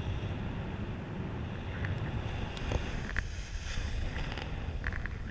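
Wind noise from the airflow buffeting the camera microphone of a paraglider in flight, a steady low rumble. A few brief sharp sounds come about three seconds in and again near the end.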